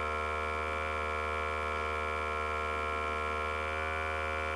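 Testo 320 combustion analyzer running its sampling pump with a steady hum while it zeroes out on fresh air before a flue-gas test.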